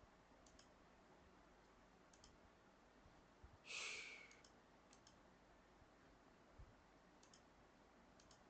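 Faint computer mouse clicks, each a quick double tick, scattered through a near-silent room, with one short breathy exhale about three and a half seconds in as the loudest sound.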